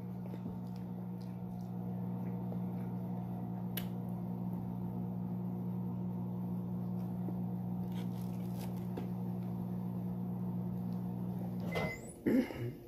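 Microwave oven running with a steady electrical hum, which cuts off suddenly near the end, followed by a short beep and a couple of clicks.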